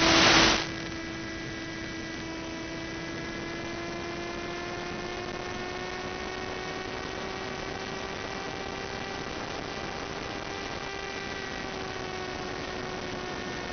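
A brief burst of radio static, then a steady electric drone from the FPV plane's NTM Prop Drive 35-36 1400KV brushless motor and propeller, picked up through the analog video link's audio. The pitch creeps up slightly and dips again near the end.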